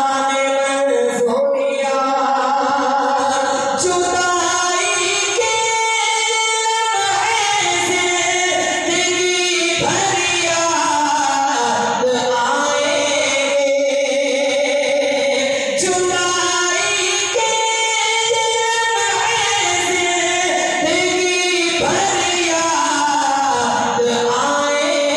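Naat sung by a solo male voice without accompaniment into a microphone: long melodic phrases with held and ornamented notes, broken by short breaths every few seconds.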